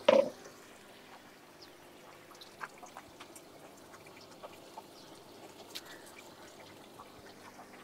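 Faint dripping and trickling water with scattered small ticks over a low steady hum. A brief louder sound comes right at the start.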